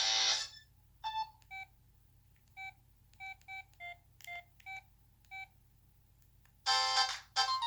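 Samsung Intensity III cell phone speaker giving about ten short electronic beeps at slightly different pitches and irregular spacing. A music ringtone fades out just before them, and another ringtone melody starts near the end.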